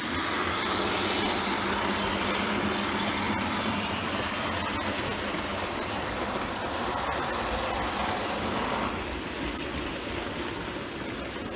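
Model railway locomotive pulling wagons along the track: a steady hum of the motor and rolling wheels, with a few faint clicks, getting a little quieter about nine seconds in. The locomotive has been re-motored and is running smoothly again.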